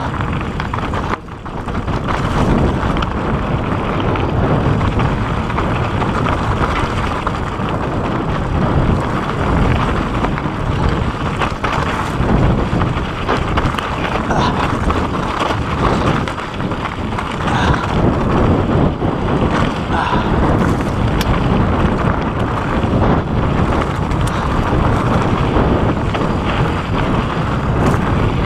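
Mountain bike descending fast on a rocky dirt trail: steady wind noise on the microphone over the tyres crunching through gravel and the bike clattering over small rocks.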